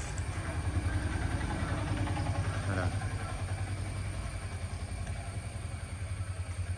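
Maruti Suzuki Wagon R's petrol engine idling, a steady low pulsing hum.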